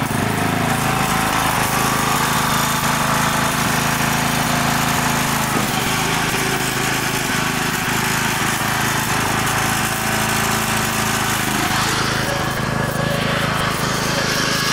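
Riding lawn mower's engine running steadily as the mower is driven across the grass, with a brief shift in engine pitch near the start.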